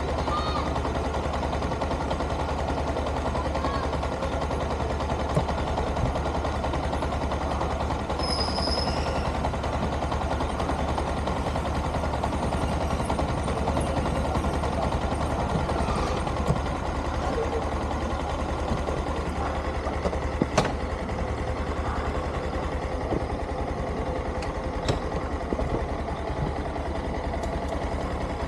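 Yamaha dual-sport motorcycle engine idling steadily, with a few sharp clicks over it.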